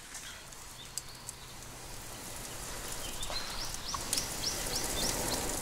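Wood campfire crackling with a few sharp pops under a pot of rice on the boil, its hiss and sizzle growing steadily louder. About three seconds in, a bird sings a quick run of rising chirps in the background.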